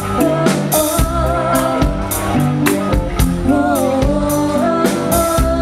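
A live pop-rock band playing: a woman sings a melody over electric guitars, keyboard and a steady drum beat, with her voice bending in pitch about halfway through.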